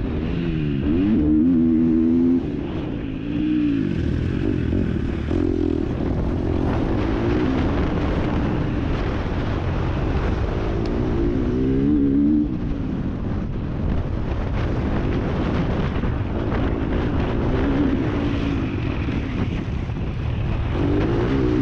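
MX2-class motocross bike engine running hard, its pitch rising and falling over and over as the throttle opens and closes through the track's sections.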